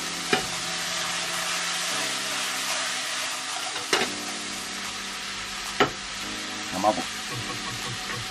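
Thinly sliced pork scraps sizzling as they fry in a nonstick frying pan, stirred with a black plastic spatula that knocks sharply against the pan four times.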